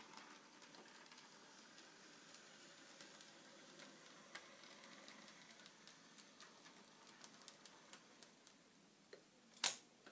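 N-gauge model train running slowly over the layout: a faint steady whirr with light ticks from the wheels and rail joints, coming more often in the last few seconds. Near the end there is one sharp, loud click.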